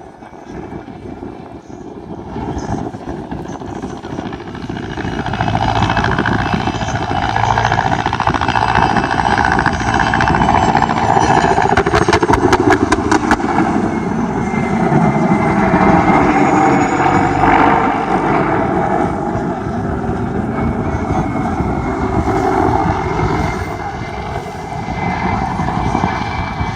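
Mil Mi-2 helicopter flying by, its twin turboshaft engines and rotor growing louder over the first few seconds and staying loud. A high turbine whine falls in pitch around the middle.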